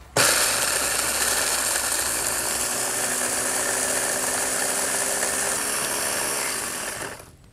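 Ninja blender motor running at full speed, its blade pulverizing dried morel mushrooms into powder. It starts abruptly and winds down near the end.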